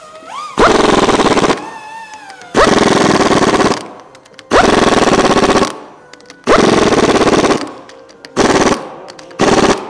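Matco Tools pneumatic impact wrench driving hex socket-head bolts into a pump's discharge adapter: six bursts of rapid hammering, the first four about a second each and the last two shorter, with a quick spin-up at the start of each burst.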